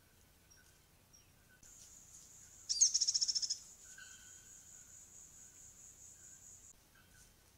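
A high-pitched animal call: a loud trill of rapid pulses, about a dozen in under a second, about three seconds in, inside a steady high buzz that lasts about five seconds and stops near the end. Faint short notes come from other animals lower down.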